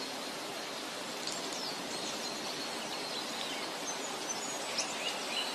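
Nature-sound ambience: a steady rushing hiss like flowing water or rain, with birds chirping briefly about a second in and again several times near the end.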